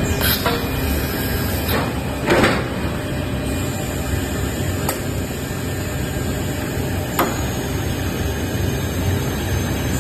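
Kerui five-extruder cast stretch-film line running, a steady machine noise with a few sharp clicks, the loudest about two and a half seconds in.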